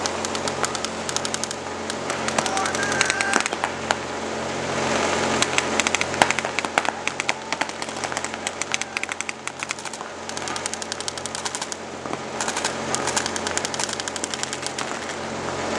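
Rapid strings of sharp pops over music with a steady, even bass beat.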